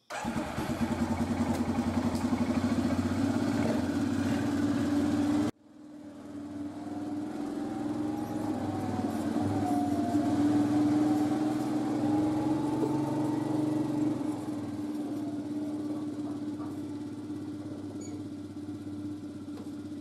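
ATV (four-wheeler) engine idling close by, cut off abruptly about five seconds in. It then starts up again, runs steadily, and fades gradually toward the end as the ATV drives away.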